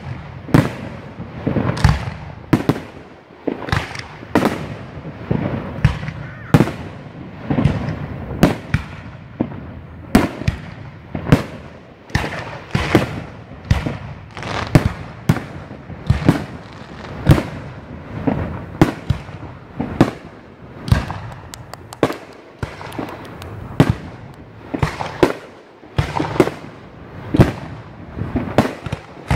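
Aerial firework shells bursting in steady succession: sharp bangs about one to two a second, with booming echoes between them. A short run of rapid crackling comes about two-thirds of the way through.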